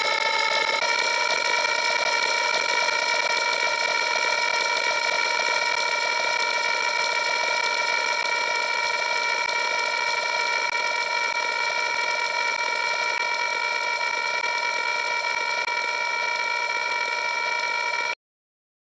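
An extended sound effect: a steady machine-like whirring drone made of several held tones, shifting slightly about a second in and cutting off suddenly near the end.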